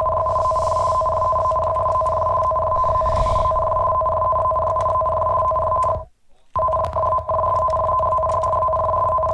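Japanese emergency alert alarm tone: two steady pitches sounding together without a break, except for a short cut-out about six seconds in, after which the tone resumes.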